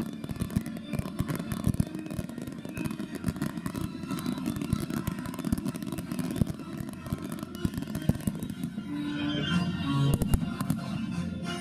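A dense fireworks barrage: rapid sharp pops and bangs crackle over a low rumble. Music plays under it and comes back up near the end.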